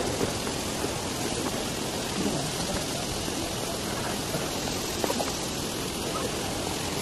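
Steady, even hiss of rushing water, with faint voices under it.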